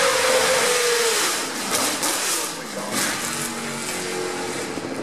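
A racing car passing at speed, its engine note falling in pitch as it goes by and then fading away.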